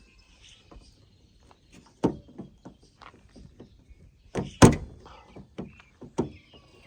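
Scattered plastic-and-metal knocks and clicks as a replacement rear exterior door handle is pushed and seated in a 2004 Honda Civic's rear door, which it does not sit quite flush in. The loudest is a single thump about four and a half seconds in.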